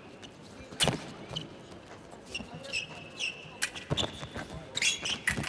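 Foil fencers' footwork and blades during a bout: a run of sharp stamps and taps on the piste, several with a short high squeak or ring after them, clustered about a second in and again in the second half.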